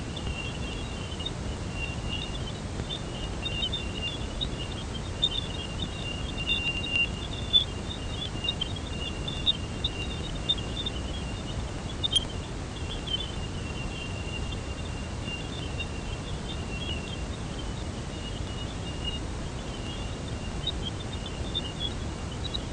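Radio emissions from Jupiter, recorded by the Cassini spacecraft and turned straight into sound. A steady hiss carries a faint high, thin tone and a constant scatter of high chirps and blips, with a few sharper pops, the loudest about seven and twelve seconds in.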